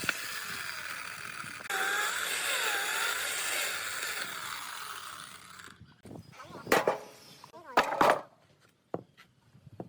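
A power tool running with a steady whirring hiss, which gets louder about two seconds in, then winds down and stops about six seconds in. A few sharp knocks follow.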